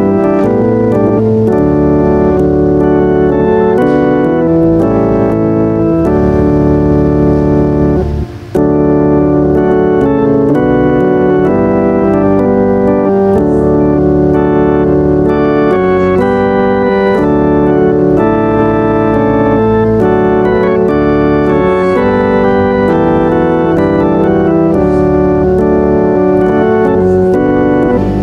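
Organ playing music of held chords that move from one to the next, with a short break about eight seconds in.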